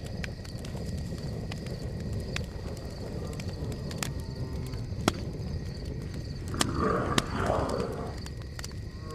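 Wolf growling low and rough, starting a little past halfway and lasting about a second and a half, over a steady low rumble with scattered sharp clicks.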